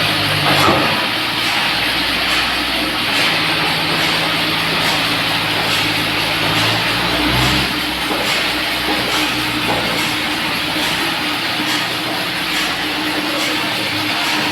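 Sawmill machinery running: a steady mechanical noise with a constant hum and a low drone that comes and goes.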